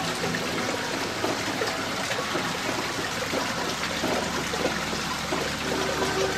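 Steady trickling and splashing of running water turning a small model water wheel, with faint music underneath that grows clearer near the end.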